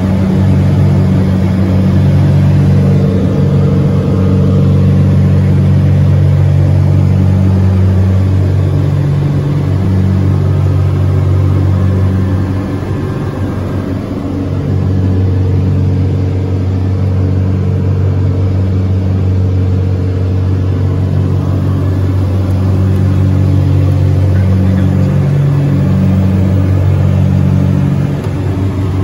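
Propeller airplane engines running steadily, heard inside the cockpit on approach to land: a loud, even low drone that eases slightly about halfway through.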